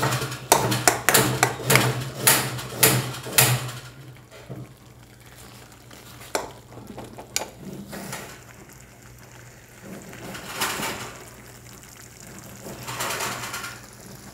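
Steel spoon stirring thick potato curry in a metal pan, clinking and scraping against the pan about twice a second for the first few seconds. After that come a few scattered clinks and softer, wetter stirring.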